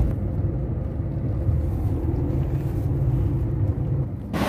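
Low, steady rumble of a car heard from inside its cabin. Near the end the sound cuts abruptly to a brighter hiss.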